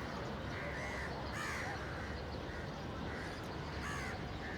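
Crows cawing, a run of short caws, about six in all, the loudest about a second and a half in, over a steady background hiss.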